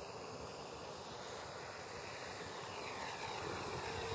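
Radio-controlled model airplane flying in low, its motor and propeller faint at first and growing a little louder as it comes close, with a slight pitch glide in the second half.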